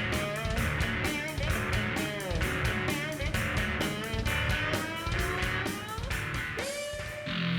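Background music: guitar with bending notes over a steady drum beat, changing character just before the end.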